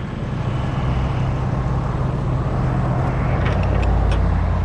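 Diesel engine running with a steady low hum, the rumble swelling slightly about three to four seconds in, with a few light clicks.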